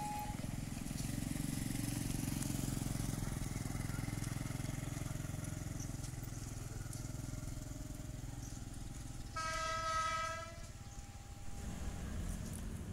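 An approaching train running with a low rumble, then sounding its horn in one blast of about a second and a half, about nine seconds in.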